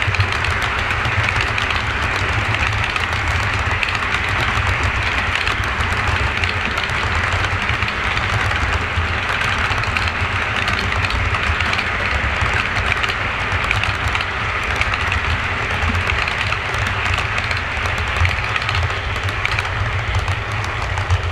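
Model freight train's cars rolling past on the layout track: a steady rolling clatter of wheels on rail over a low rumble.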